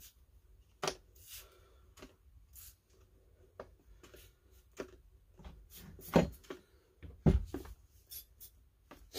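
Handling sounds of a Stihl MS170 chainsaw being turned in gloved hands on a workbench: scattered clicks and knocks, with short spritzes from a spray bottle. Soapy water is being sprayed over the pressurised crankcase to find an air leak. Two sharper knocks come about six and seven seconds in.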